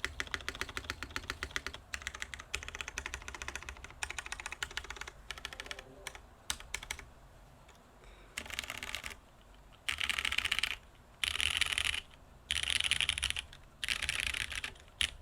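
Typing on a Geon Frog TKL mechanical keyboard with broken-in, lubed Cherry MX Brown tactile switches, a polycarbonate plate and GMK keycaps: a fast run of key clicks for the first half, then five bursts of about a second each of very rapid clatter with short pauses between.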